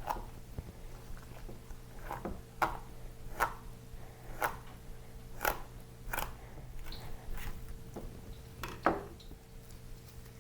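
Knife slicing a fillet off a red tilapia, a series of about ten short crunchy strokes at irregular intervals of roughly a second, the loudest near the end, over a faint steady hum.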